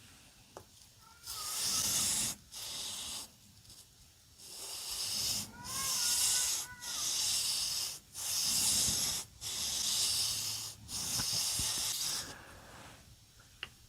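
Knife blade stroked back and forth on a whetstone: about eight rasping strokes of roughly a second each, with short pauses between, and faint squeaks on a couple of them.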